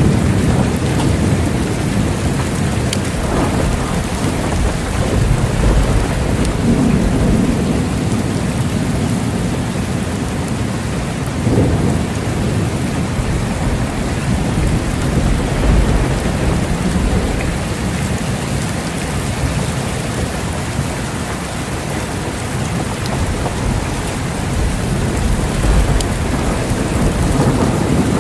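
Steady heavy rain pattering on surfaces, with low rolling thunder rumbling underneath and swelling several times.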